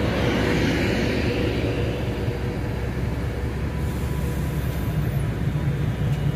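Avanti West Coast Pendolino electric passenger train moving along the platform, a steady low rumble of wheels and running gear.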